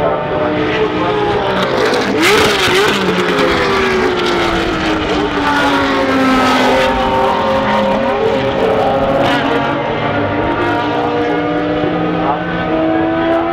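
Several racing cars lapping a circuit, their engines running hard, with engine notes that fall and then rise again in pitch as they brake and accelerate through the corners. There are two sharp cracks, about two seconds in and again about nine seconds in.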